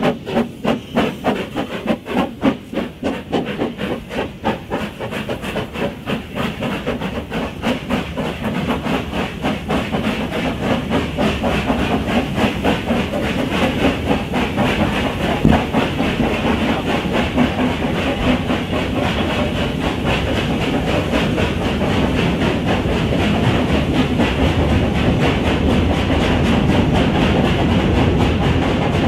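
Two narrow-gauge 2-6-2T steam locomotives working hard up a steep gradient with a heavy train. Their sharp exhaust beats come faster and faster until they run together into a dense, steady chuffing that grows louder toward the end.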